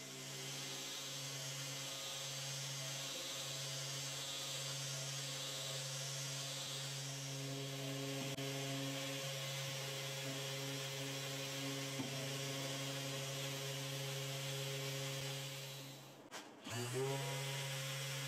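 Mirka Deos electric orbital sander running against wood veneer with 150-grit paper: a steady motor hum under the hiss of sanding. About 16 seconds in it cuts out briefly, then comes back rising in pitch as it spins up again.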